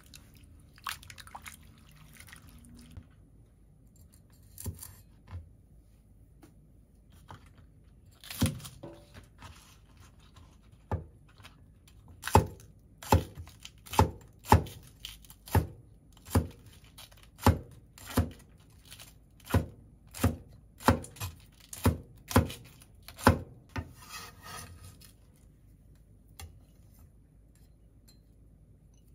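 Cleaver slicing a green onion into rings on a wooden cutting board: a steady run of sharp knife strikes, about two a second, lasting roughly ten seconds from about the middle. A few scattered knocks and faint handling sounds come before it.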